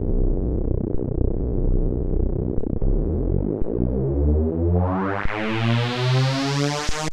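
Chiptune music played by a Commodore 64C's 8580 SID sound chip: a deep, busy bass part, then from about two-thirds of the way in the sound brightens steadily as a filter opens, over stepping synth notes.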